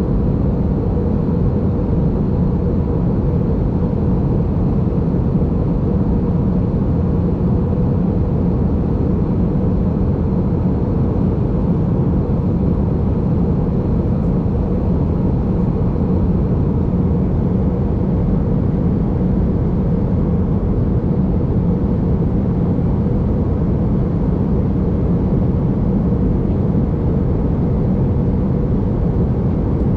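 Steady cabin noise inside an Airbus A321-200 airliner in flight: an even, unchanging rush of airflow and engines, heaviest in the low end.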